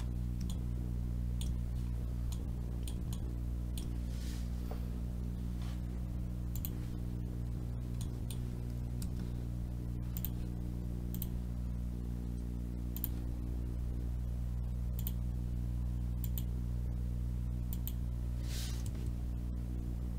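Irregular, sharp computer mouse and keyboard clicks over a steady low hum.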